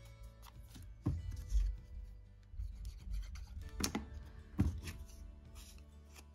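Card stock and paper squares being handled, slid and rubbed on a cutting mat, with a few light taps as pieces are set down and pressed into place; the sharpest tap comes just under four seconds in.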